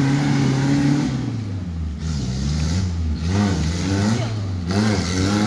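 Vehicle engine running close by, steady and low, its higher note dropping away about a second in.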